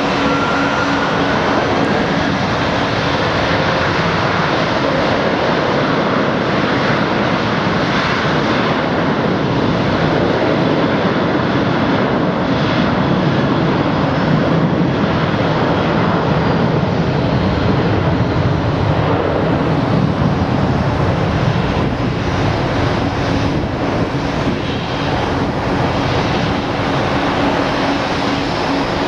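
Boeing 737-700's CFM56-7B turbofan engines at takeoff thrust, a steady jet noise with a low hum under it as the airliner rolls down the runway and lifts off.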